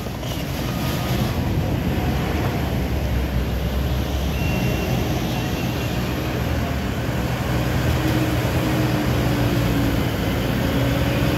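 Diesel engines of a Cat D5 bulldozer and a Kubota skid steer running steadily under load as they move dirt. A faint high whine comes and goes partway through.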